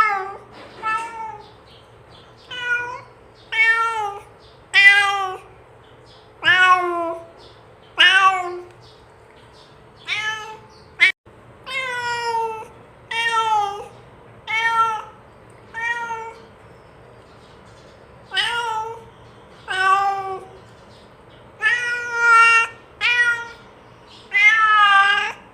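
Domestic cat meowing over and over, about twenty short meows with brief pauses between, most of them falling in pitch: a cat calling to another cat to come and eat.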